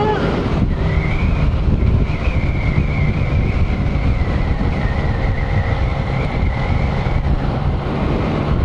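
A 2017 Yamaha MT-09's three-cylinder engine running steadily at cruising speed, under heavy wind rush on the bike-mounted microphone, with a wavering whine.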